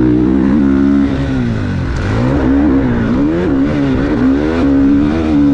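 GasGas MC450 four-stroke single-cylinder motocross engine under way, the revs rising and falling repeatedly as the throttle is opened and closed, then held steadier near the end.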